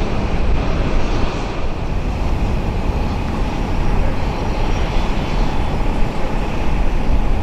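Jet airliner engines running, a loud steady rumble with a hiss above it.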